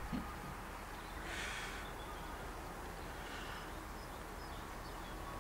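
Quiet outdoor ambience with a few faint, short bird chirps, and a brief soft rustle about a second in.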